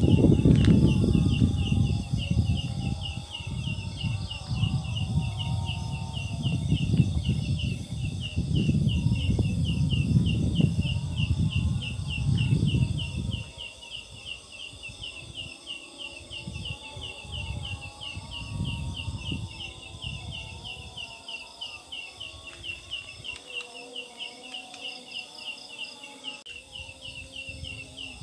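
Leaf katydid (the 'ciang ciang', belalang daun) calling at night: a steady, even run of short, high chirps, about two to three a second, that sound like a chick or a bird. A loud low rumble on the microphone covers the first half and drops away about halfway through.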